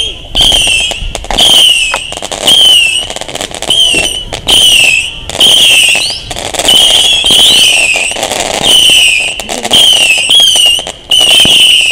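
A firework battery firing whistling shots in quick succession, more than one a second. Each shot is a short, loud, high whistle that slides slightly down in pitch over a rushing hiss.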